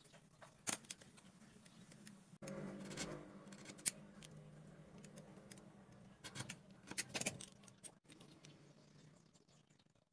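Faint handwork sounds of a popsicle stick being marked and cut with a snap-off utility knife against a wooden board: scattered sharp clicks and scrapes, with a cluster of clicks from the knife cutting about six to seven seconds in, over a faint low hum.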